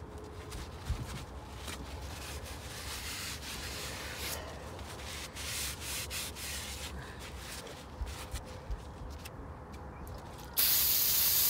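A shop rag rubbing over the steel spindle of a Dexter 5,200 lb trailer axle as it is wiped clean, in uneven repeated strokes. Near the end a sudden loud hiss lasts about a second.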